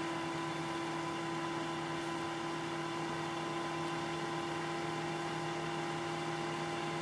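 Air fryer running, its convection fan humming steadily as it blows hot air out: the heating now works after the repair.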